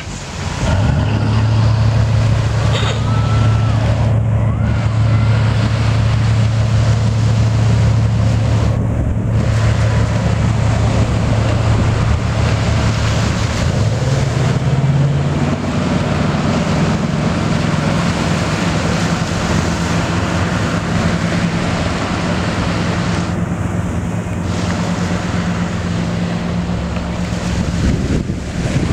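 Lifeboat's diesel engines running hard under way, a steady low drone that rises in pitch about halfway through as the boat picks up speed. Wind buffeting on the microphone and surf are heard underneath.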